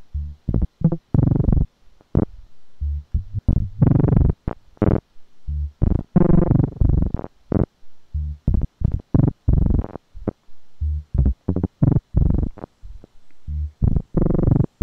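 VCV Rack software modular synth patch playing: a SEQ-3 step sequencer driving a VCO-1 oscillator through an ADSR envelope and VCF filter, with its cable routings shuffled by the Father & Son patch sequencer. It gives an uneven run of short, bass-heavy synth notes with a few longer, brighter tones among them.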